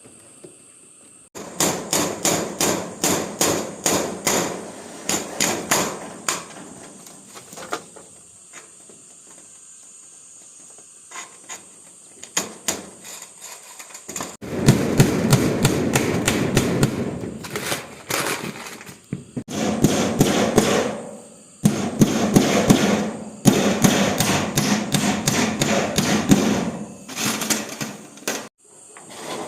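Hand tool striking bamboo in quick repeated blows, about four a second at first, then in denser, louder spells with short pauses between them.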